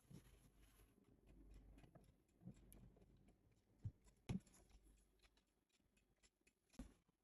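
Near silence: room tone with a few faint light taps, the loudest pair about four seconds in and another near the end.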